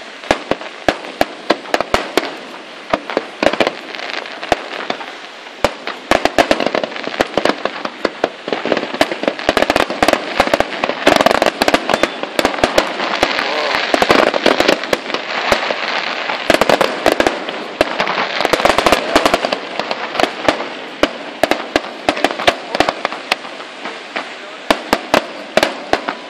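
Fireworks display: aerial shells bursting in a rapid string of sharp bangs over dense crackling, thickest through the middle stretch.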